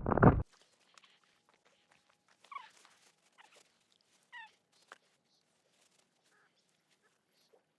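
A brief loud noise in the first half-second, then two faint, short falling calls from an animal, a couple of seconds apart.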